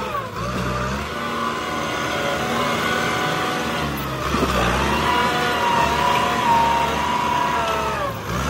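Kubota M8540 tractor's diesel engine running hard while the tractor works its front blade through soil. The engine pitch sags and climbs back three times: about half a second in, around four seconds in, and near the end.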